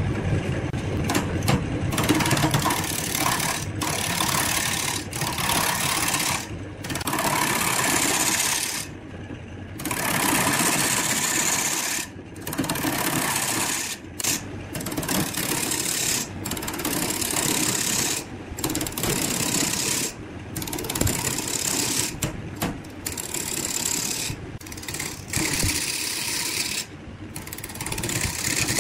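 Wood lathe spinning a large log blank while a hand turning tool cuts into it, a loud rough shaving and scraping noise over the lathe's running motor as the dark outer wood is turned away. It comes in long passes broken by brief gaps every few seconds.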